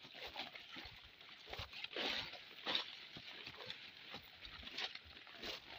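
Footsteps brushing and crunching through dense leafy ground cover and grass, an uneven series of rustling steps with a few louder ones.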